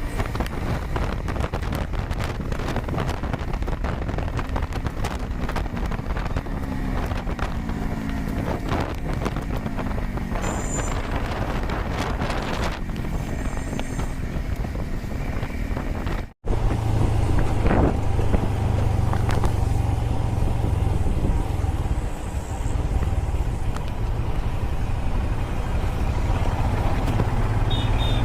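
Motorcycle on the road, its engine running with wind rushing over the microphone and tyre and traffic noise. About 16 s in there is a sudden brief cut, after which a steadier, louder low engine hum carries on.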